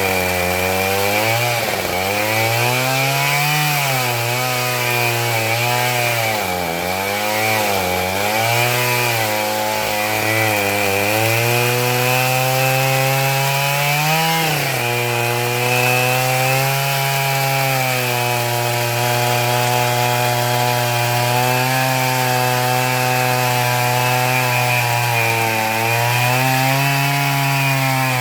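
Husqvarna 572 XP two-stroke chainsaw with an Oregon ripping chain, running at full throttle while rip-cutting black locust along the grain. In the first half its pitch sags and recovers again and again as the chain loads up in the cut; after that it holds steadier, with brief rises near the middle and near the end.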